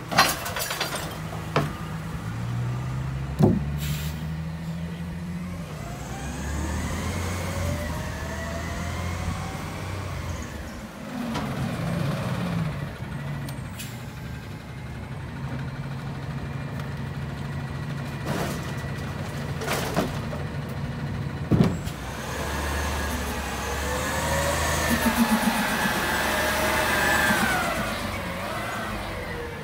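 McNeilus rear-loader garbage truck running its packer: the diesel engine speeds up to drive the hydraulics, and a whine rises and falls twice as the packer blade cycles. Several sharp bangs of bins and recycling being tipped into the hopper.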